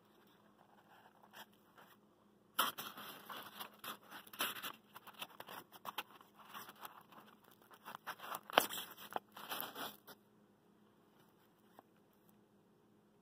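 Handling noise: irregular rustling, crunching and scraping of the plastic bag, fibre insulation and polystyrene foam packed around a small Stirling engine, with a sharper click near the end of it. The rustling starts about two and a half seconds in and stops a few seconds before the end.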